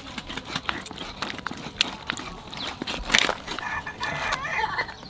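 A large knife cutting through a plucked chicken's joints and skin, a run of short sharp clicks and cracks, the loudest about three seconds in. A live chicken clucks briefly near the end.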